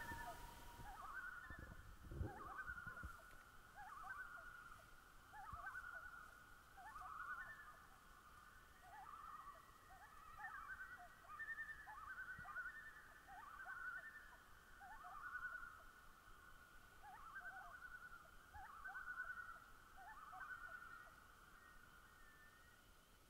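A wildlife chorus of many short, overlapping trilled calls, repeating every second or so. A long, steady whistled note runs through the first second. The calls fade out near the end.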